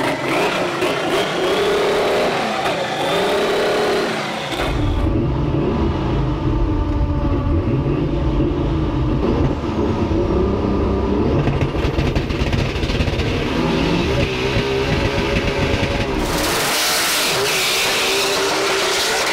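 Twin-engine, twin-turbo VR6 Volkswagen Golf revving hard, its pitch rising and falling for the first four seconds. From about four and a half seconds it runs at full load with a heavy low drone, and a loud hissing rush joins near the end.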